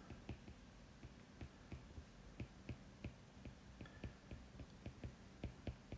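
Faint, irregular clicks and taps of a stylus on a writing tablet during handwriting, a few per second, over a faint low hum.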